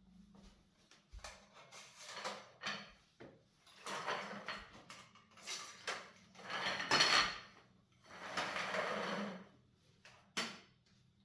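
Handling noises: a run of scrapes and slides lasting about a second each, with a couple of sharp knocks, the last one near the end.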